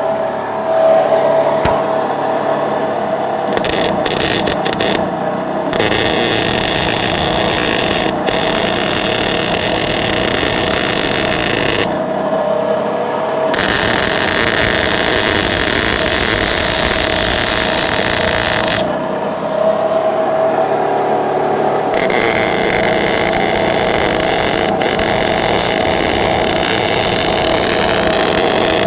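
MIG welder arc crackling and sizzling as steel flat bar is welded onto a steel oil tank: a few short sputtering starts, then three long runs of several seconds each with brief pauses between them. A steady hum runs underneath.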